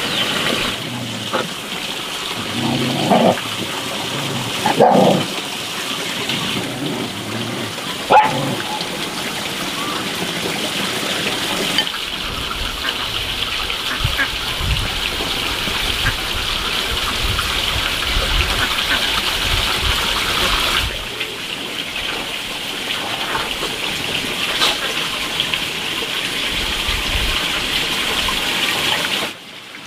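A dog barks twice, a few seconds in, over a steady high-pitched hiss. A sharp knock follows a few seconds later, and low handling thumps come later on.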